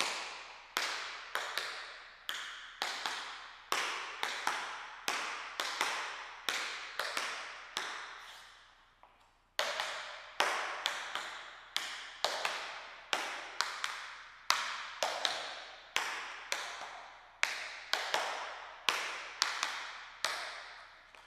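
Tap shoes' metal taps striking a wooden board in repeated shuffle steps. Quick clusters of sharp taps, each a shuffle's forward-and-back brush and then a step, come about every three-quarters of a second. A pause of about a second falls near the middle, then the pattern resumes.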